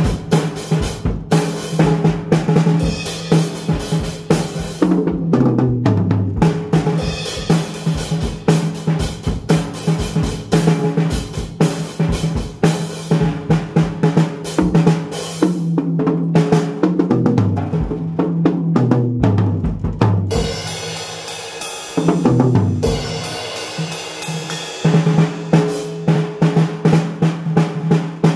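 An acoustic drum kit played freely, with a steady flurry of drum and cymbal strokes. Twice the strokes run down in pitch across the drums as fills, and the playing eases off briefly past the middle before picking up again.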